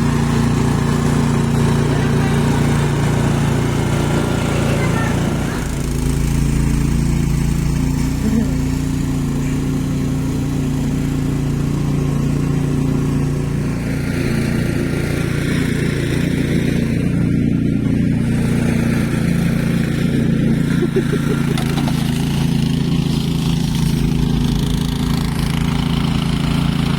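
Car engine running steadily with a low, even hum while driving.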